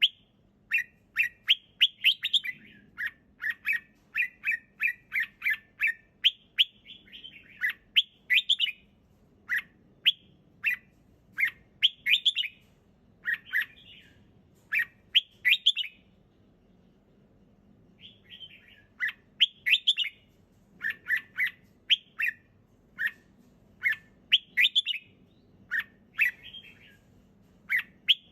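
Red-whiskered bulbul singing: short phrases of quick, clear chirping notes repeated one after another, with a pause of about two seconds a little past the middle.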